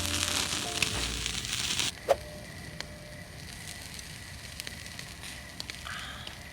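Wood fire crackling in a campfire stand, with one sharp pop about two seconds in and scattered small crackles after it. A louder hiss in the first two seconds stops abruptly.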